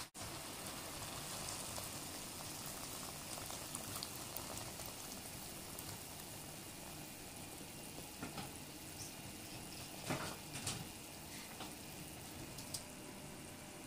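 Water in a hot pot of chicken pieces bubbling steadily as more water is poured in, with a few light knocks in the second half.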